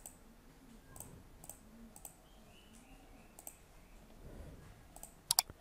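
Computer mouse clicking as settings checkboxes are ticked: scattered faint single clicks, then a quick louder double click near the end.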